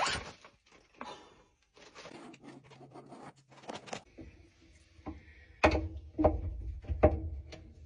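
Screwdriver working at the screws of a dryer vent cover: scattered clicks and scrapes of metal on metal, with a run of louder knocks and bumps in the last two seconds.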